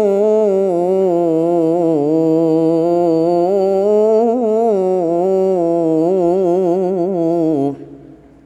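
A young man's solo Quran recitation in the melodic tilawah style: one long held note with a winding, ornamented melody, cutting off sharply near the end.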